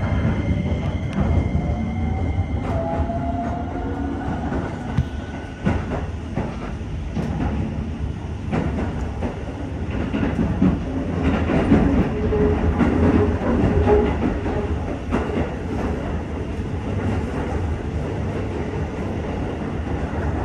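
Electric commuter train running at speed, heard from inside the car: a steady wheel-on-rail rumble with repeated clicks from rail joints. A high motor whine rises in pitch during the first few seconds as the train picks up speed.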